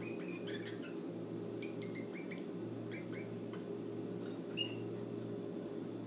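Canary nestlings giving thin, short, high cheeps in quick scattered runs, one louder cheep about two-thirds of the way through, over a steady low hum.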